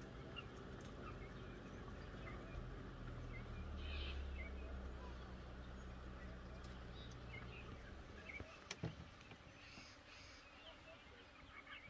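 Faint, short high chirping calls scattered throughout, over a low steady hum that stops about eight seconds in, with a single sharp click near the end.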